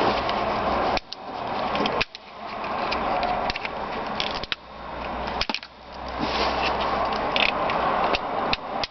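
Hands working at a car's plastic window master switch assembly: rough handling and rubbing noise with scattered sharp plastic clicks as its retaining clips are worked loose. The noise cuts off abruptly several times and builds back up.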